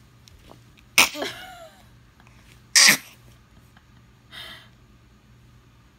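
A tired baby fussing: two short, sharp cries about two seconds apart, the first trailing off in a falling whine, then a fainter short whimper a little later.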